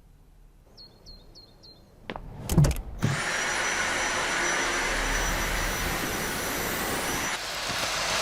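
Dyson vacuum cleaner: four short electronic beeps, a couple of knocks, then the motor switches on abruptly and runs steadily with a high whine over its suction rush.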